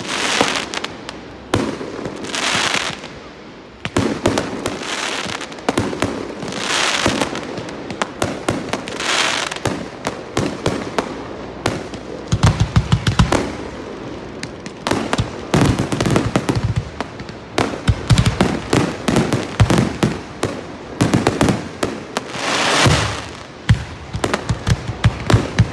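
Aerial fireworks display: shells bursting with sharp bangs, with a few stretches of hissing crackle. From about halfway in, the bangs come thick and fast, a finale barrage.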